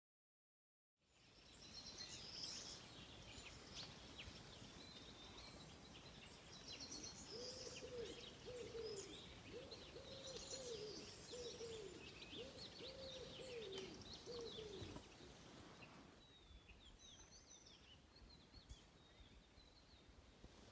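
Faint birdsong: many small birds chirping and twittering over quiet countryside ambience. Through the middle, a lower hooting call rises and falls about six times. After a change near the end, only a few scattered chirps remain.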